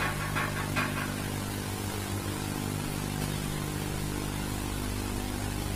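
A steady low hum of several held tones under an even hiss, with a few faint clicks in the first second.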